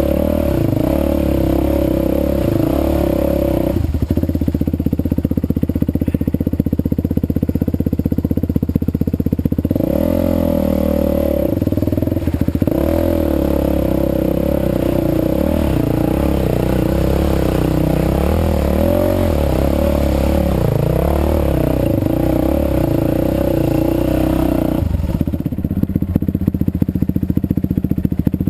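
Yamaha WR450F's freshly rebuilt single-cylinder four-stroke engine running, with a new piston and rings in a welded crankcase. Its note changes abruptly several times: about 4 s in, around 10 and 12 s, and near the end.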